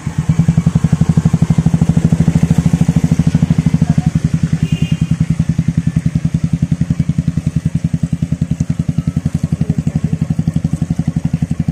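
Motorcycle engine running at low revs with an even, fast pulsing beat, a little louder just after the start, as the bike crawls forward and is pushed through mud on a punctured wheel.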